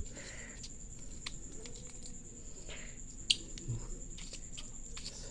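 Small gear being handled: a battery-operated flashlight is turned over in the hands, giving a few light clicks and soft rustles, the sharpest click about three seconds in. A faint steady high-pitched whine runs underneath.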